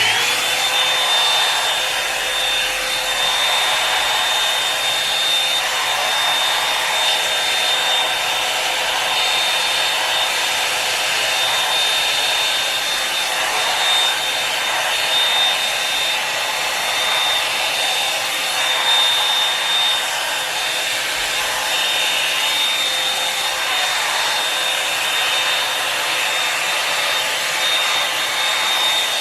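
Revlon One-Step Hair Dryer and Volumizer hot-air brush switching on at its low setting. Its fan spins up in the first moment, then runs with a steady rush of air and a high whine.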